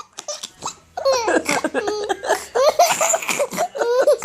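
Little girl laughing hard in quick, high-pitched bursts, breaking out about a second in and running on without a pause.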